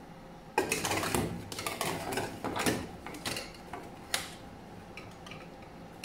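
Metal baking tray clattering and scraping against an oven's wire rack as it is slid into the oven: a run of sharp metallic clanks and scrapes that starts about half a second in and dies down after about four seconds.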